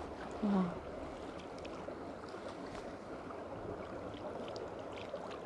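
Steady rush of flowing spring water, with a person's brief hum about half a second in.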